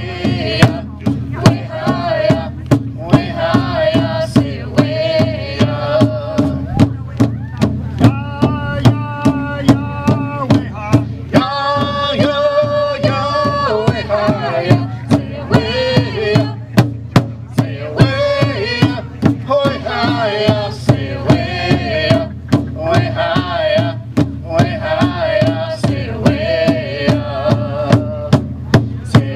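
Native American drum-group singing of an intertribal song: men's and women's voices chanting together over a steady, even beat on a large upright hand drum. A few long high held notes come in the middle.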